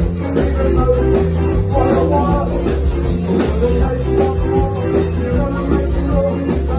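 Live band playing loudly through a stage PA, with a steady drum beat and bass under a male lead vocal.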